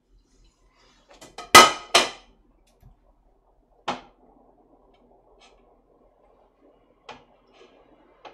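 Crockery and kitchen utensils clattering on a counter: two sharp clacks about a second and a half in, a single knock near four seconds, then a few light clicks.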